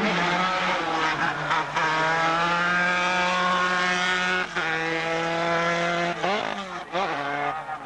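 Formula 3 racing car's four-cylinder engine running hard at high revs on a hillclimb, its note holding steady with a brief break about halfway through, then wavering up and down near the end.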